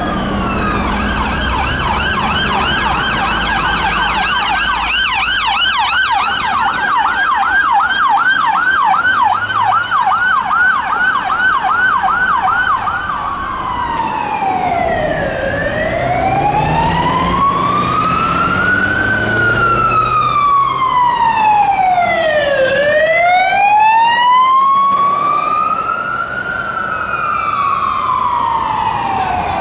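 Fire engine siren sounding a fast yelp, about two or three sweeps a second, then switching about 13 seconds in to a slow wail that rises and falls about every seven seconds. Traffic runs underneath.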